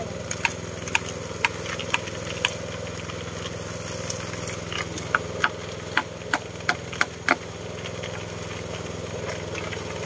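An engine idling steadily, with sharp knocks over it: about two a second for the first few seconds, then a quick run of them a little past the middle.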